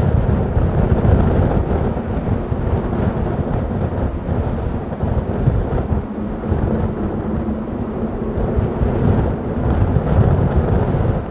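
Airbus A350-900 airliner's Rolls-Royce Trent XWB turbofans at takeoff thrust during the takeoff roll: a loud, steady, deep rumble.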